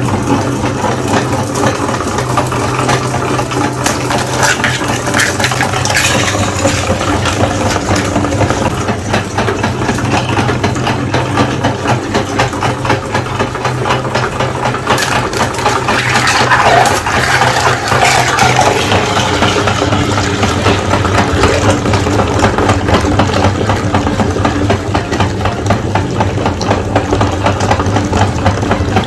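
Electric meat grinder motor running with a steady hum, with continuous crackling and crunching from material being forced through it, busiest about halfway through.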